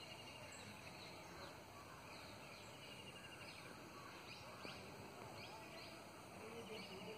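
Faint outdoor background hiss with a small bird's short, high chirps repeating every second or so.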